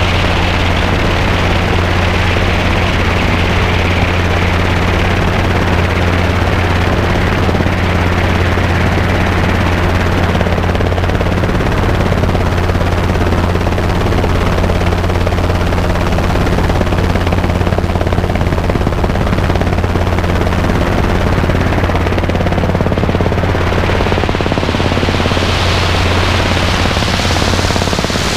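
Robinson R22 helicopter in steady flight: the constant loud drone of its engine and two-bladed rotor, with an even rushing hiss of airflow over it.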